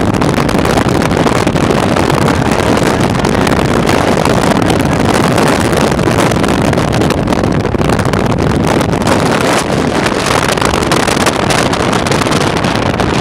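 Steady, loud rush of wind and road noise from a car driving fast, heard from inside the car by the side window, with wind buffeting the microphone.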